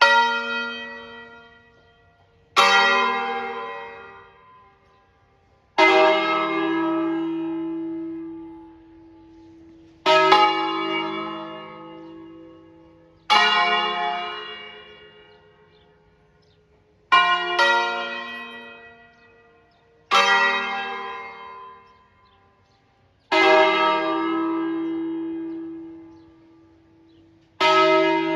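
A five-bell church peal tuned to E-flat, cast by Crespi in 1853, sounding a slow melodic 'concerto solenne': single bells struck one after another at different pitches, about ten strokes each left to ring out and fade, two coming close together midway. This is the newly programmed automatic concert, played after the clappers were overhauled or replaced.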